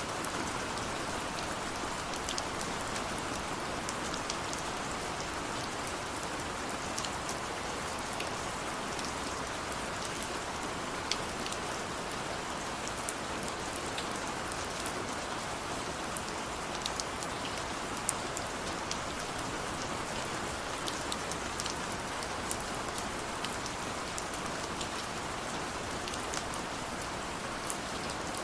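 Steady rain falling, an even hiss with scattered sharp drop ticks on a surface.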